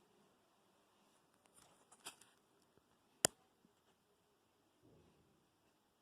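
Mostly quiet, with a few faint scuffs about two seconds in and one sharp, short click a little after three seconds in.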